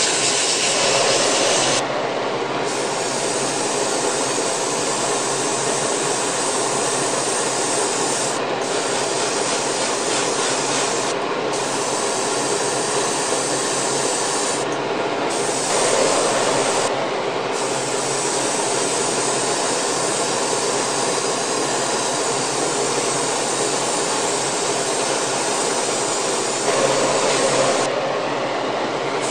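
Airbrush spraying in front of a running hobby spray booth fan: a steady rushing hiss that swells briefly a few times.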